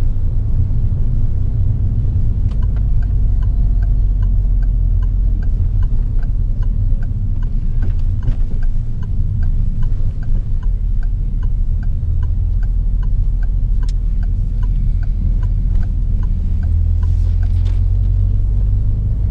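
Steady low road and engine rumble inside a moving car's cabin. From a few seconds in until a little past halfway, the turn-signal indicator ticks at an even rate, signalling a left turn.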